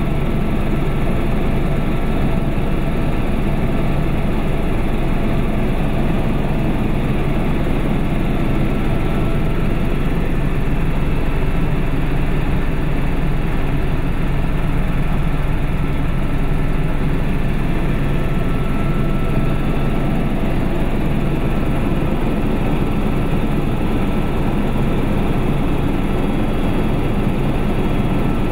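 Small aircraft's engine and propeller running at a steady cruise, a constant loud drone heard from inside the cabin.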